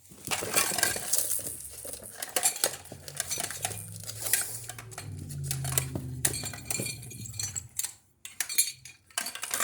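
Small hard toys clattering and clinking against each other as they are rummaged through, with many quick irregular knocks.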